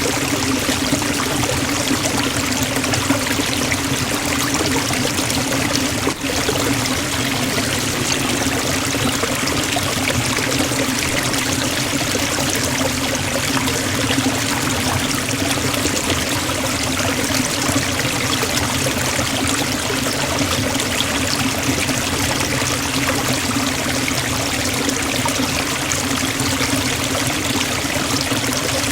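Forest waterfall: the steady, dense rush of falling water, with a strong low rumble beneath the hiss. There is a momentary dip in the sound about six seconds in.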